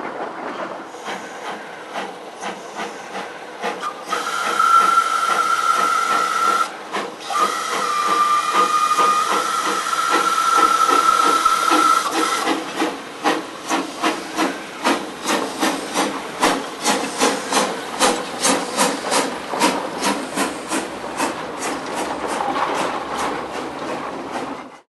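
Narrow-gauge steam locomotive: slow exhaust chuffs, then two long whistle blasts with a short break between them, then exhaust beats that grow steadily quicker. The sound cuts off suddenly near the end.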